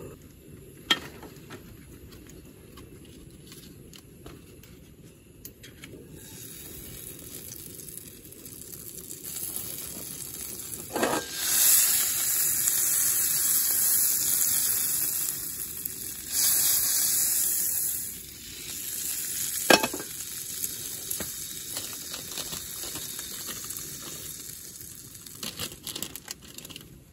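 Butter sizzling and frying in a hot cast iron skillet on a portable gas stove. The sizzle swells loud about halfway through while the skillet is tilted, then settles to a quieter fry. Short metal knocks come from the skillet against the stove grate.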